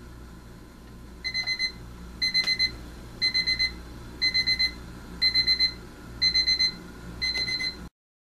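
Westclox Big Ben Model 47617 quartz alarm clock sounding its alarm: a high electronic beep in quick groups of about four, repeating roughly once a second, seven times, then cutting off suddenly.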